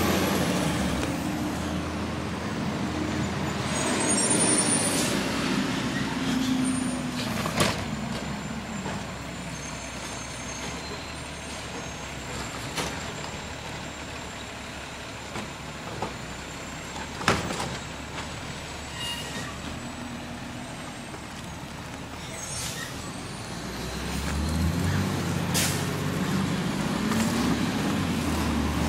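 Garbage truck engine revving as it pulls away, then a quieter distant rumble with a few sharp knocks; about 24 seconds in the engine grows loud again, its pitch rising and falling.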